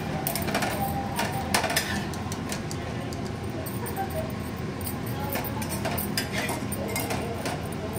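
Stainless-steel kitchen utensils clinking and scraping: a metal spatula on a flat pan and steel plates and a ladle being handled, as a run of short sharp clinks over a steady low background hum.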